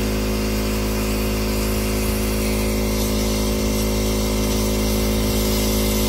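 Dryer vent cleaning equipment running with a steady motor hum and whirr, as the line fed into the wall vent works lint loose and out of the duct.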